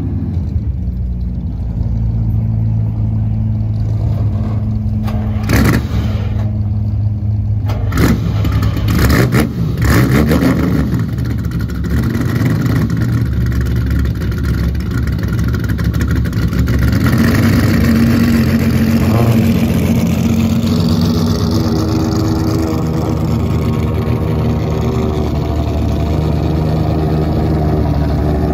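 Ferrari V12 engine idling, with several quick throttle blips about five to ten seconds in. From a little past halfway, a higher, steadier engine note builds.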